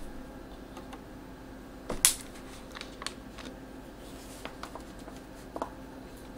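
Scattered light clicks and ticks, the sharpest about two seconds in and several smaller ones later, over a faint steady hum.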